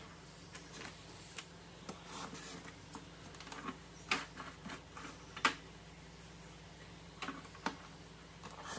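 Scattered clicks and taps of a sliding paper trimmer being worked on printed card: the clear clamp bar lifted and set back down, the card shifted, and the cutter head pushed along its rail. The two sharpest clicks come about four and five and a half seconds in.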